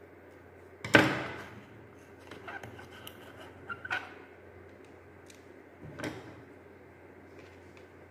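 Handling knocks and clicks of a hard plastic handheld mini fan and a metal screwdriver on a wooden table: one sharp, loud knock about a second in, a few lighter clicks around the third and fourth seconds, and a softer knock about six seconds in.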